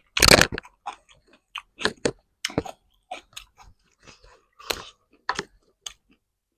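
A person chewing food close to the microphone. There is a loud crunchy bite right at the start, then irregular wet mouth clicks and crackles as the chewing goes on.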